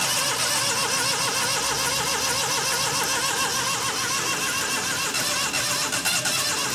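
Daihatsu Cuore's carburetted engine being started after a head gasket replacement: a steady mechanical noise whose pitch wavers quickly up and down, several times a second.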